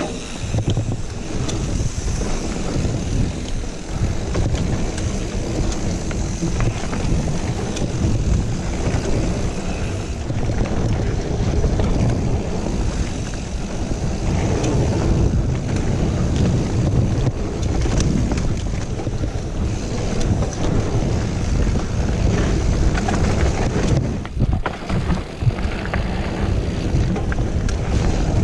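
Mountain bike rolling fast down a dirt forest trail: a steady rumble of wind on the microphone and tyres on dirt, with scattered clicks and rattles from the bike. The rumble drops briefly a few seconds before the end.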